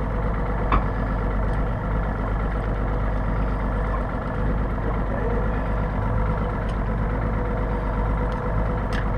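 Boat engine idling steadily, a low even hum, with a couple of light clicks from handling on board.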